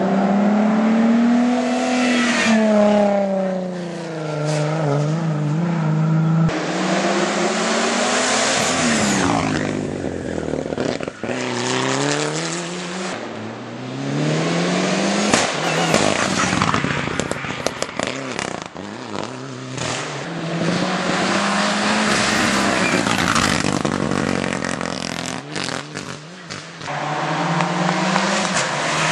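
Hill-climb race car engines revving hard, one car after another, the pitch climbing and then dropping again and again as they accelerate and shift gears up the road.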